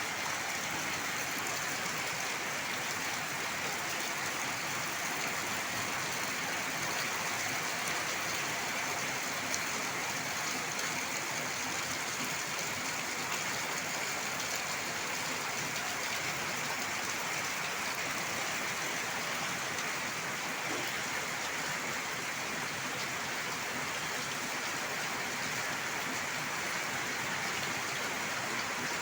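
Steady rain falling, an even hiss of rain with no letting up.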